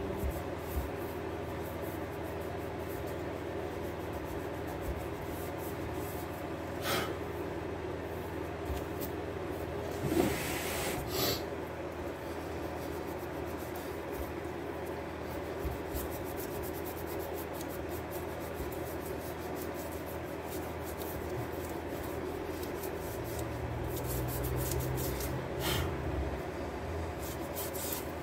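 Alloy wheel being sanded by hand, an abrasive rubbed steadily back and forth over the painted spokes and rim to scuff the paint before refinishing. A few short louder knocks or scrapes come through, about a quarter of the way in, near the middle and near the end.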